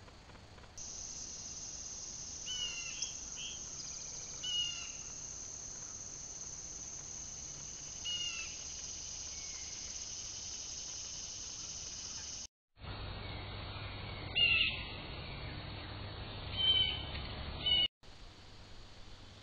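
Wild birds giving short calls, a few at a time, over a steady high-pitched drone. The sound drops out abruptly twice.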